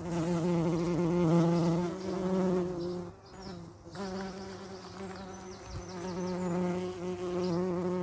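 A cartoon bee buzzing: a steady, wavering drone that fades for about a second around three seconds in, then resumes.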